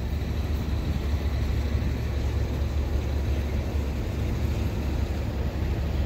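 Diesel truck engine idling: a steady low rumble with no change.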